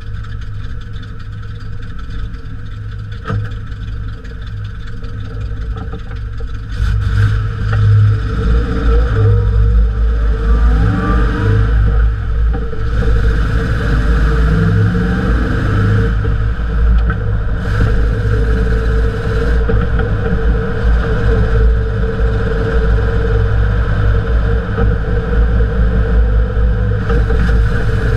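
Jeep CJ5 heard from beneath the rear axle: it runs quietly at first, then about seven seconds in pulls away and gets louder as the engine revs up, with heavy low rumble of road and drivetrain noise while it drives.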